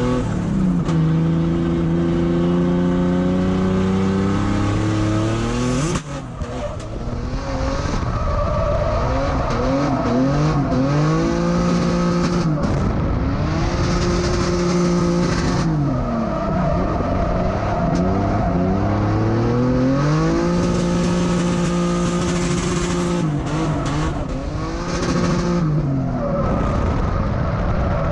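Drift car's engine heard from inside the cockpit, revving hard and held at high rpm through slides. The revs fall and climb again several times, with a sharp drop about six seconds in. Tires squeal under the slides.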